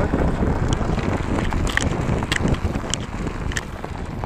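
Paratrike's wheels rolling out on a rough dirt track with wind rumbling on the microphone, slowing and getting quieter, and no engine running: an engine-out landing roll after a glide. A light tick comes back about every half second in the second half.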